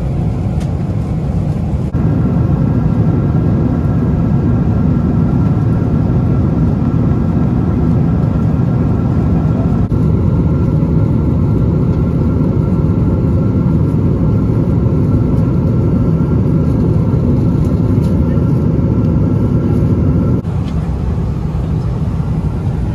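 Steady, deep rumble of jet engine and airflow noise inside a Boeing 777's cabin at cruise. The sound shifts abruptly about two, ten and twenty seconds in.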